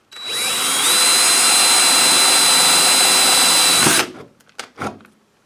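Power drill boring a 1/8-inch hole in a sliding patio door: the motor spins up with a rising whine, runs steadily for about three seconds, then stops and winds down. A few light knocks follow.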